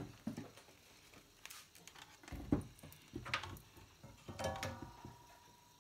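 Scattered light clicks, knocks and rustles from handling a CRT TV flyback transformer and its wire leads on a wooden workbench, with a soft low thump about two and a half seconds in.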